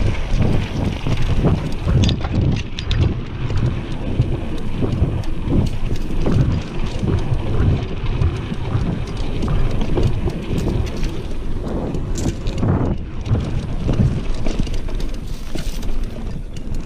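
Mountain bike descending dirt singletrack at speed: heavy wind buffeting on the camera microphone over the tyres running on the dirt, with frequent short clicks and rattles from the bike and trail.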